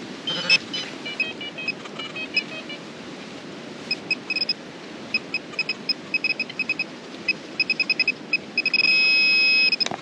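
Handheld metal-detector pinpointer probing a dug hole for a buried coin, beeping: short electronic beeps that come faster and faster as it closes on the target. Near the end they merge into one steady tone as the probe sits right on it.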